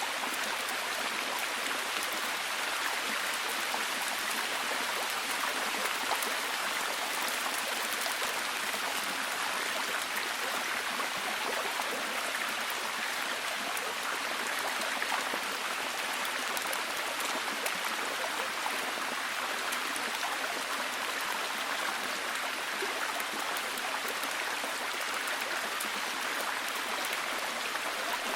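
Steady heavy rain: a dense, even hiss of countless drops falling, with no rise or fall.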